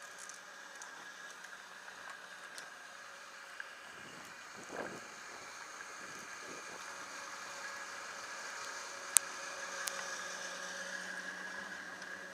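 Chairlift machinery running with a steady hum that grows louder toward the end. Skis swish on snow about five seconds in, and a couple of sharp clicks sound near the end.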